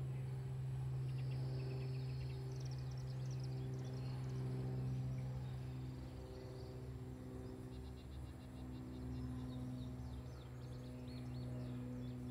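Small birds chirping in quick high trills and chirp series, twice in scattered bouts, over a steady low hum.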